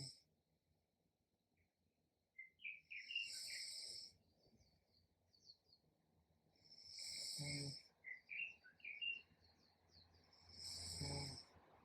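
Faint human snoring, one breath about every four seconds. Each breath is a hissing rush, and most carry a low rattle. Faint short high chirps come between the breaths.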